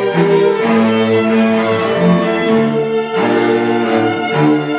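String quartet playing: violins, viola and cello bowing sustained chords that change every second or so, with one note held steadily above them.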